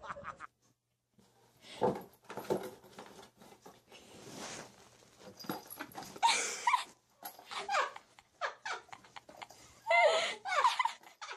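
Small dog vocalizing in a series of short bursts that waver up and down in pitch, after a brief silence near the start.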